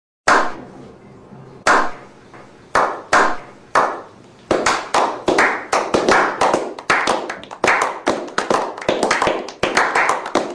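Slow clap by a small group of men: a few single hand claps about a second apart, then the clapping gets quicker and denser from about four and a half seconds in.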